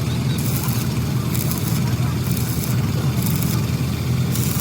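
A running engine with a steady low hum, overlaid by a high hiss that cuts in and out about once a second.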